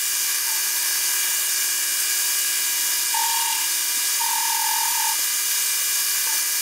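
Vernon metal lathe running under a light turning cut, a carbide tool on a metal shaft: a steady machine whine over a hiss, with a higher tone coming and going twice around the middle. The cut sounds intermittent, a "rub, rub, rub" noise.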